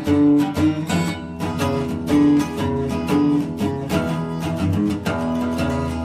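Acoustic blues background music: an acoustic guitar picking notes in a steady rhythm.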